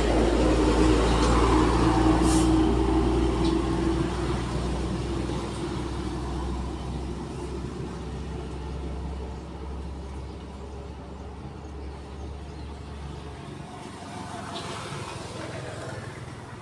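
A motor vehicle's engine rumbling with a steady low hum, loudest in the first few seconds and then fading gradually; the deepest part of the rumble stops about 13 seconds in.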